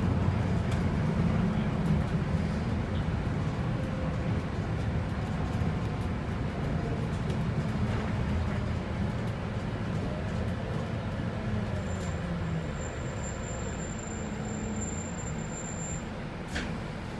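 Volvo 8900LE city bus (B7RLE chassis, 7-litre six-cylinder diesel) heard from inside the passenger cabin on the move: steady engine and road rumble that grows gradually quieter. A single click near the end.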